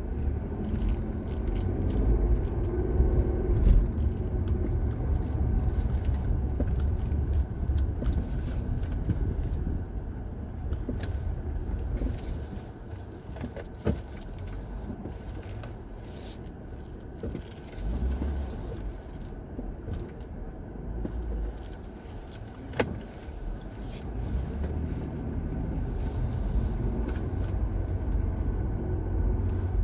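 Road traffic: the low rumble of passing cars, heavy for the first dozen seconds and again near the end, quieter in between, with a couple of sharp clicks.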